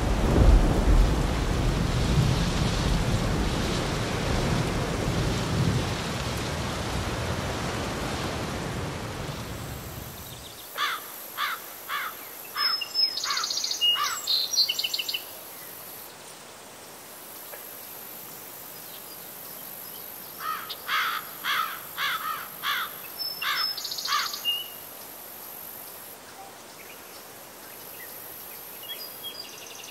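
A loud rushing noise, like wind or a distant storm, that fades over about ten seconds and then cuts off. Then a flock of wild geese flying overhead call in two bouts of repeated honking, about ten seconds apart, with a few more calls near the end.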